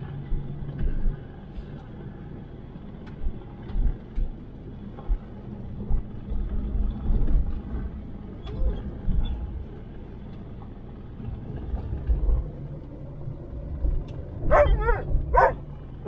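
Low road and engine rumble inside a moving Jeep's cabin, with small knocks from the ride. Near the end a dog gives a few short, high yips.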